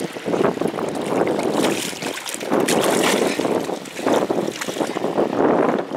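Wind gusting across the microphone over choppy water lapping against the side of a boat, a loud rushing noise that swells and eases every second or so.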